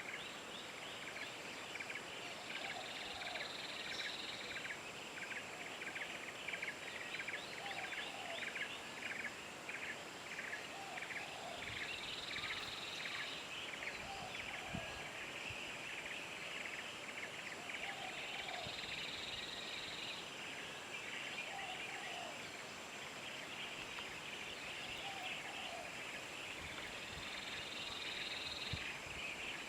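Outdoor wildlife ambience of calling birds and insects: a steady run of short high chirps at about two a second, a higher drawn-out note about every eight seconds, and soft lower calls every couple of seconds.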